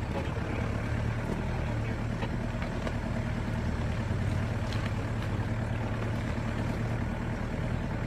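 Off-road 4x4's diesel engine running steadily at low revs while crawling over rocky ground, with a few sharp ticks and knocks on top.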